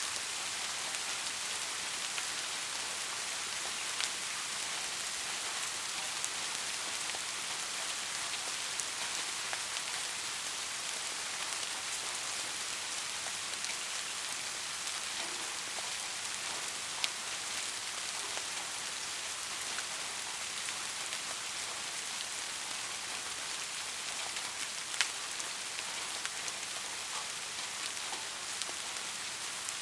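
Steady rain, an even hiss with scattered individual drops ticking, a few louder drops standing out.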